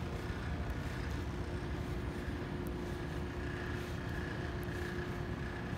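Steady city din: a low rumble of distant traffic with a faint steady hum over it.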